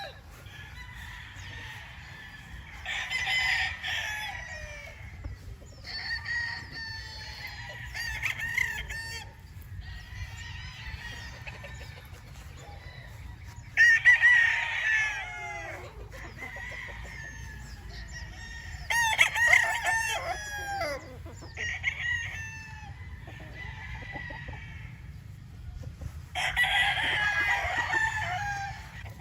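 Several roosters crowing in turn, their calls at times overlapping, with the loudest crows about halfway through and near the end, over a steady low background hum.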